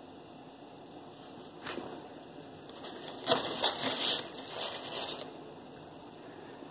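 A short run of close scraping and rustling, a couple of seconds long with several sharper scratches, after a single click; a steady low hiss runs underneath.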